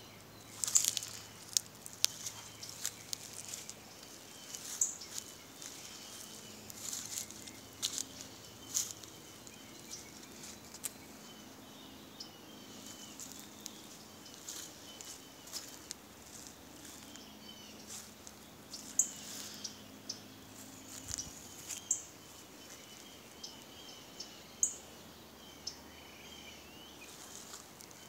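Outdoor garden ambience: small birds chirping and twittering, with scattered sharp clicks and rustles over a faint low hum that stops about two-thirds of the way through.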